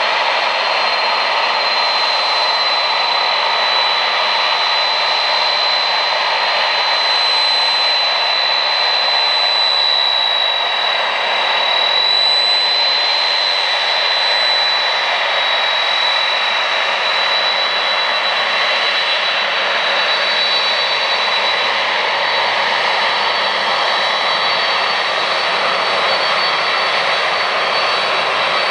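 Twin turbofan engines of a Boeing 767 airliner at taxi power as it rolls along the taxiway: a steady loud rushing hiss with a high whine held near one pitch, sliding slightly lower over the first half.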